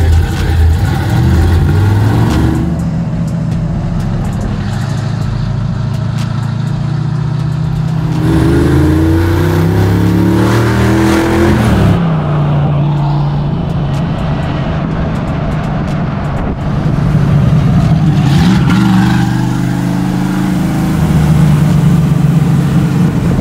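Small-block Chevy V8 of a Square Body Chevy C10 drift truck running hard on the street. Its note climbs with two bursts of acceleration, dropping sharply between them.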